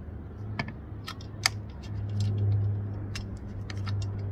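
Light metal clicks and ticks of a bolt being fitted and turned by hand into a roof-rack crossbar's T-track through a kayak-carrier bracket. A low steady hum runs underneath and swells about two seconds in.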